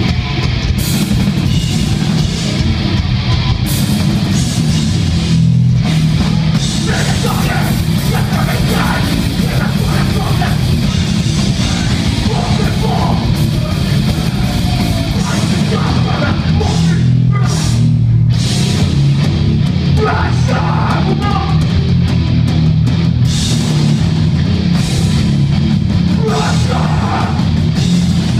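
Beatdown hardcore band playing live: heavy distorted electric guitars, bass and drum kit at steady full volume.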